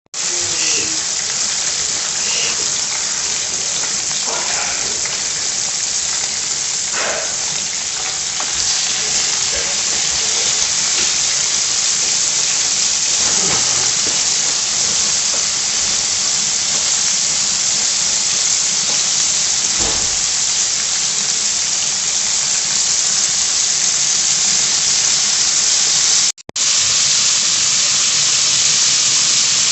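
Pork chops frying in hot oil, a loud, steady sizzle that breaks off for a moment near the end.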